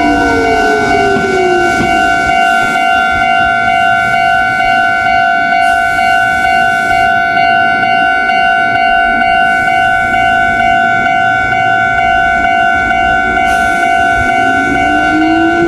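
Japanese railway level-crossing alarm ringing steadily, its electronic tone the loudest sound throughout. A train's motor whine falls in pitch in the first two seconds as it slows, and another rises in pitch near the end as a train accelerates.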